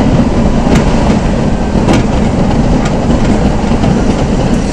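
Z 5600 double-deck electric multiple unit running at speed, heard from inside the coach: a steady, loud rumble of wheels on rail with a few sharp clicks.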